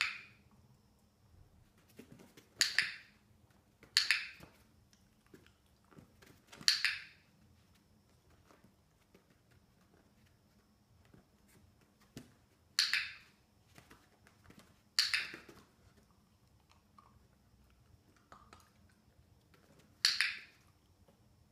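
Handheld dog-training clicker clicking about seven times at uneven gaps of one to six seconds. Each click marks the puppy for holding its front paws up on the bowl.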